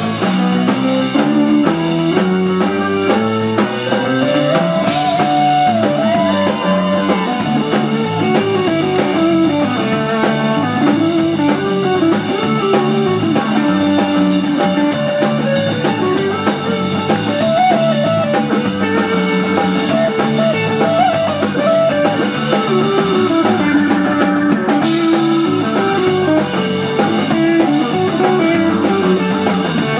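Live instrumental rock band: an electric guitar plays a winding melodic lead line over drum kit, bass guitar, piano and Hammond B-3 organ.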